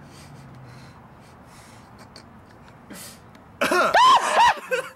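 A person's sudden burst of high-pitched laughter, a few quick rising-and-falling whoops lasting about a second, breaking in about three and a half seconds in after a quiet stretch.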